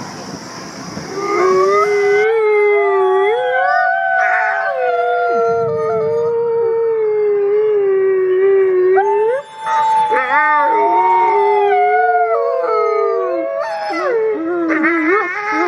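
A pack of wolves howling in chorus: several long howls overlap at different pitches, with short rising yips mixed in about two-thirds of the way through and near the end. The howling starts about a second in over a rushing noise that cuts off shortly after.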